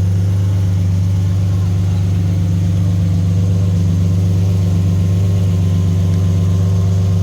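Car engine idling with a steady, even hum after its timing chain, tensioner and VVT actuators have been replaced.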